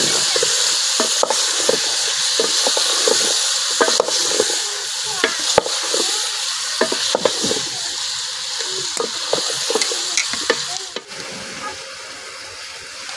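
Food frying and sizzling in hot oil in a cooking pot while being stirred, the spoon knocking and scraping against the pot many times. The sizzle gets quieter near the end.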